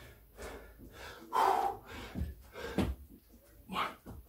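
Heavy breathing of a man exerting himself through a burpee, with a loud exhale about a second and a half in and two dull thuds a little after as he drops from standing to the floor on his hands and feet.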